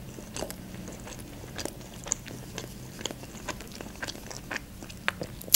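A person chewing a mouthful of toasted club sandwich with lettuce, close to the microphone: soft irregular crunches and wet mouth clicks, with one louder click near the end.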